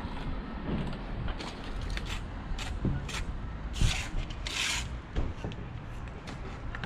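Short rasping scrapes of a steel trowel working mortar against sandstone walling blocks, about six in the first five seconds, the loudest near the middle.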